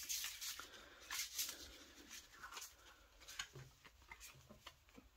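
Tarot cards being slid across a cloth-covered table and gathered into a stack: soft papery swishes and light taps, loudest in the first second and a half, then fainter.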